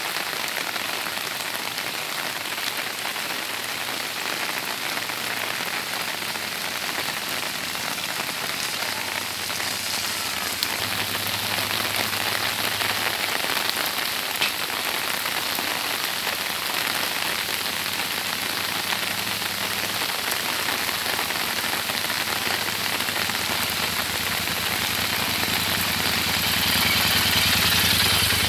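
Heavy rain falling steadily on a wet road, a constant hiss. Near the end a Royal Enfield Interceptor 650's parallel-twin engine grows louder as the bike comes close.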